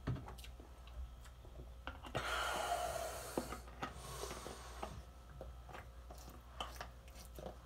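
A squeeze bottle of Kraft honey barbecue sauce being squeezed into a bowl, sauce and air hissing out in two bursts about two seconds in, with light clicks and knocks of handling around them.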